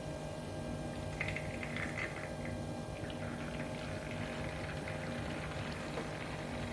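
Thick pandan and coconut-milk batter poured from a blender jug through a mesh sieve into a plastic bowl: a soft, continuous liquid pour with faint bubbly crackling about a second in, as the foam is strained off. A steady low hum runs underneath.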